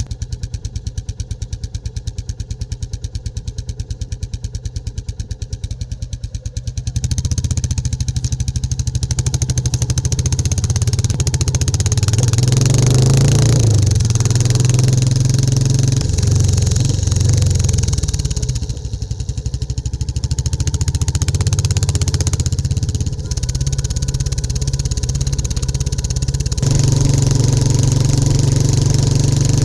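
Royal Enfield single-cylinder motorcycle engine idling with an even beat, then, about seven seconds in, pulling away and running louder under load, its revs rising and falling as the bike rides.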